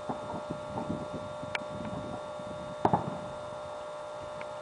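Fireworks going off: a string of pops and crackles, the loudest a double bang about three seconds in, over a steady tone.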